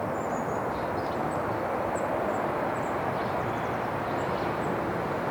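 Steady outdoor background rush with small birds chirping faintly and briefly several times over it.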